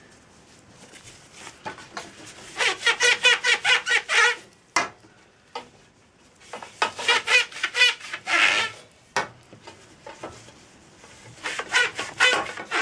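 Alcohol wipe rubbed quickly back and forth on sanded carbon-fibre pole sections, squeaking with each stroke, in three bouts of about two seconds each.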